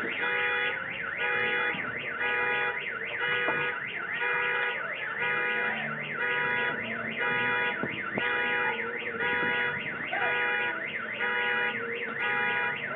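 An electronic alarm sounding, repeating the same short cycle of beeping tones and rising and falling sweeps over and over, a little under twice a second.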